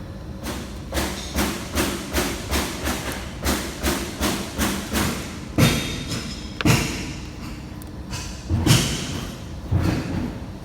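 A rapid series of knocks, about two a second for some five seconds, then four heavier, spaced thumps.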